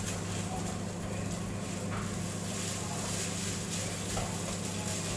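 Microwave oven running: a steady low electrical hum under a faint even whir.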